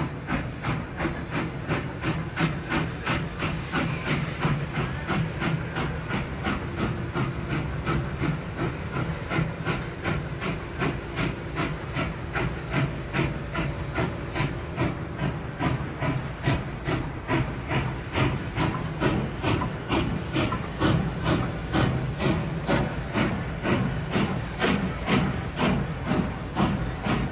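Narrow-gauge K-36 class steam locomotive No. 480 working a train, its exhaust chuffing in a steady, even beat over a continuous steam hiss.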